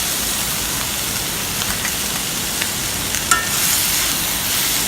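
Chopped vegetables sizzling steadily in hot oil in a kadhai, with a few short clicks of stirring.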